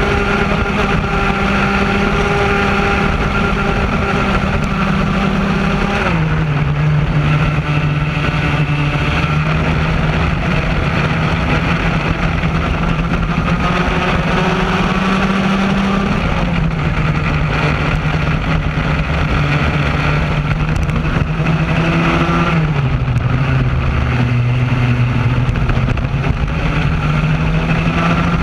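Raket-class racing kart's two-stroke engine running at racing speed, heard from onboard. Its pitch drops sharply about six seconds in and again a little after twenty-two seconds, each time as the kart slows, then climbs steadily as the engine pulls back up to speed.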